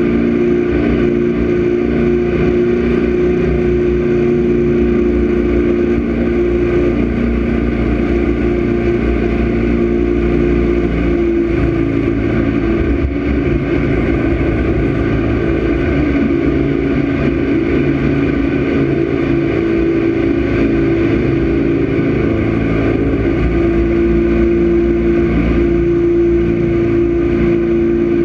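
Jet boat engine running hard at speed, a steady engine note over the rush of wind and water. The note eases slightly for a few seconds partway through and then picks up again.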